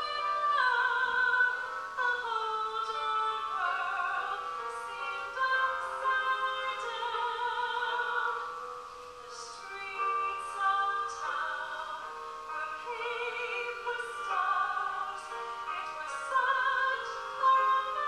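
A woman singing a slow ballad into a handheld microphone, with vibrato on long held notes.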